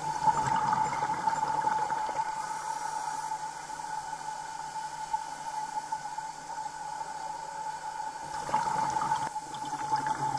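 Water bubbling and gushing heard underwater, in bursts near the start and again near the end, over a steady high-pitched hum.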